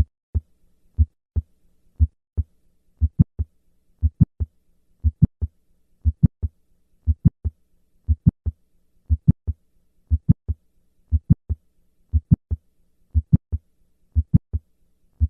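Heart sounds at about one beat a second. For the first couple of seconds only the first and second heart sounds are heard. After that, an extra sharp click falls between them on every beat: the isolated mid-systolic click of mitral valve prolapse, with no murmur.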